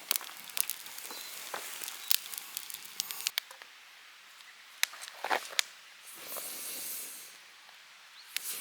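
Wood fire crackling with many sharp pops that thin out after about three seconds. A soft hiss rises and falls about six seconds in, and again briefly near the end.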